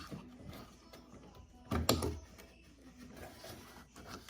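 Faint plastic-and-metal handling clicks as the last retaining tab on a GM truck's exterior door handle is worked loose, with one sharper, louder click about two seconds in as it comes free.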